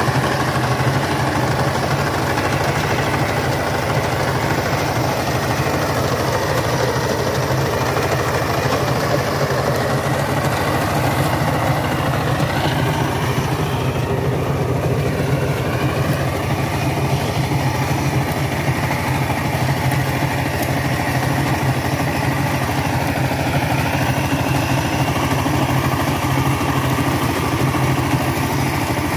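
Single-cylinder diesel engine of a two-wheel power tiller running steadily with an even, fast knock. The engine is driving the rotary tiller through wet paddy mud.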